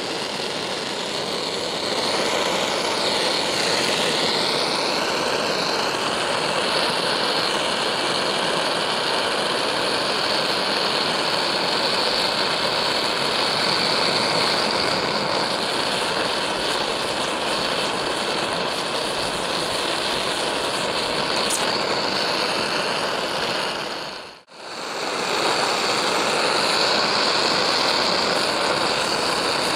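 Handheld gas torch flame hissing steadily as it heats the necks of brass rifle cases for annealing, with one brief break about 24 seconds in.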